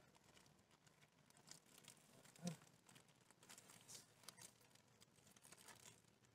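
Faint crinkling and rustling of a plastic bag as a clear polycarbonate motorcycle windscreen is slid out of it, with one short low sound about two and a half seconds in.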